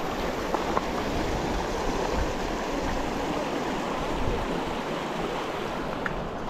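Glacial meltwater stream rushing steadily.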